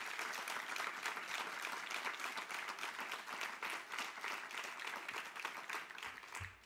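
Audience applauding: many hands clapping steadily, fading out near the end.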